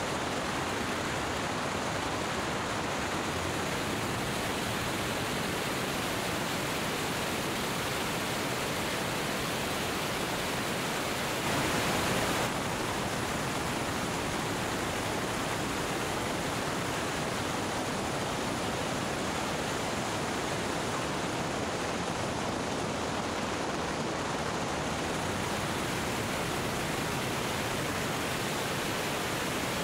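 Steady rush of wind noise over the microphone of a camera mounted outside, under the belly of a Cessna 205 moving fast on the runway, with a brief louder gust about twelve seconds in.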